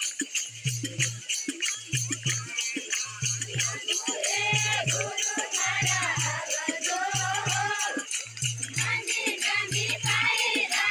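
Devotional folk song: a voice sings over a steady, repeating drum beat and jingling, rattle-like percussion. The singing comes in about four seconds in and returns near the end.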